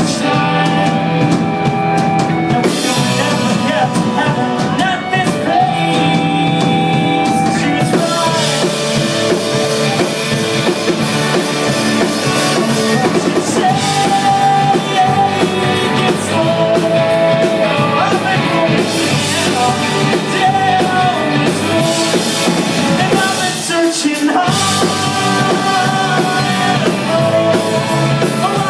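Rock song with drum kit and guitar, and a held, sung melody line over the band.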